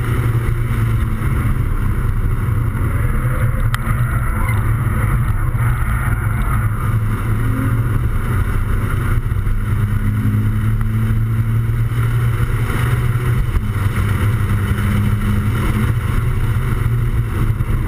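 Toyota 86's 2.0-litre flat-four engine droning steadily, heard from inside the cabin at speed, with wind rush mixed in.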